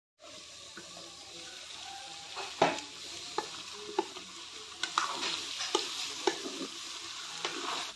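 Pork and papaya pieces sizzling in a kadhai while a wooden spatula stirs them, knocking and scraping against the pan again and again over a steady frying hiss.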